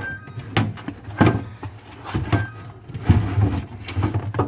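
Plastic storage containers and paper being handled while vegetables are packed: irregular knocks and clatter, about one every half second to second, with rustling in between.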